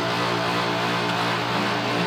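Older Carrier central air conditioner's compressor running with a loud, steady hum of several stacked tones, while its condenser fan is held off by the low-ambient kit.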